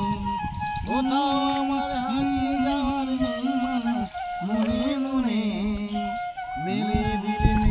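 A man singing a slow melody in long held notes that slide between pitches, the phrases broken by short breaths.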